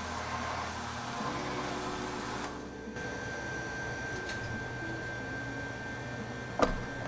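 Semi-automatic can sealer spinning a plastic drink can and seaming its lid on, a steady mechanical whirr that stops after about three seconds. A sharp click comes near the end.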